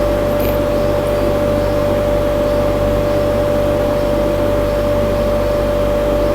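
Steady machine hum with a constant mid-pitched tone over a low drone, unchanging throughout.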